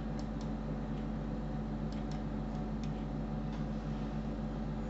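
Computer mouse clicks and scroll-wheel ticks, a handful of light clicks spread irregularly, over a steady low hum.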